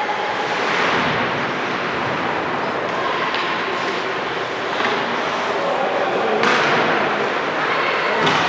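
Sounds of a basketball game in a gym: a basketball thudding on the court amid a steady din of player and spectator voices.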